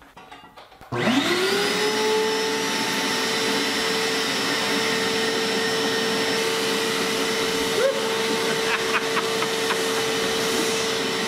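DeWalt DXV10SA 10-gallon stainless steel wet/dry shop vac switched on about a second in. Its motor whine rises quickly as it spins up, then it runs steadily.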